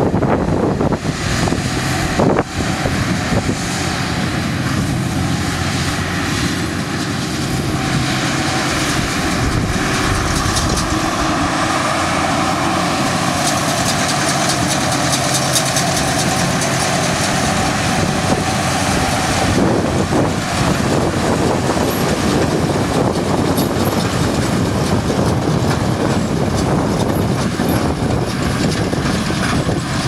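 Fendt 942 tractor running under load while it pulls a working Massey Ferguson 2290 large square baler through straw, the tractor's engine mixed with the clatter of the baler. A steady whine stands out from about 8 to 19 seconds in.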